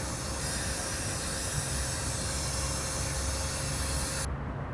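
Laresar Elite 3 cordless stick vacuum's motor running with a steady airy hiss and a faint steady tone, then cutting off suddenly near the end.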